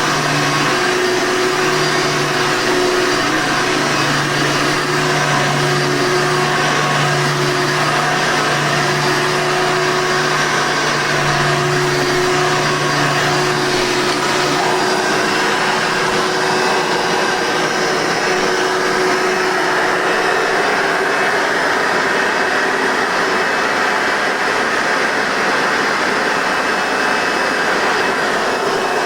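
Hoover Soft 'N Light upright vacuum cleaner with a 7-amp motor running steadily. A low hum in its sound drops away about halfway through.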